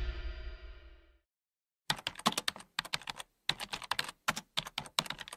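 Music fading out within the first second, then after a brief silence a keyboard typing in quick, irregular runs of sharp clicks.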